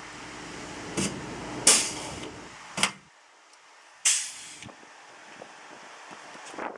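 Pneumatic pop-rivet gun setting rivets into the sheet-metal fan box: a series of sharp snaps, about five, two of them followed by a short blast of air hiss. A low hum underneath stops about three seconds in.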